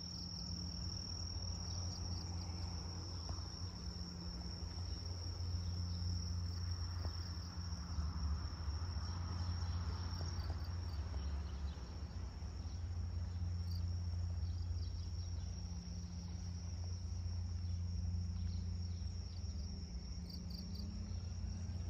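Insects trilling in one steady high-pitched drone over a constant low rumble.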